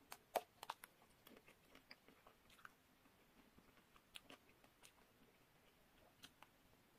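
Close-miked bite into a nut-studded chocolate-coated ice cream bar: a few sharp cracks of the chocolate shell in the first second, then quiet, sparse chewing clicks.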